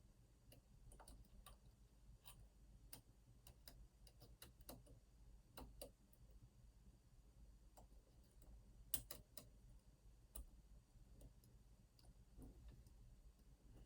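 Faint, irregular clicks and ticks of a lock pick and tension tool working the pins inside an Opnus TEX lock cylinder, with one louder click about nine seconds in.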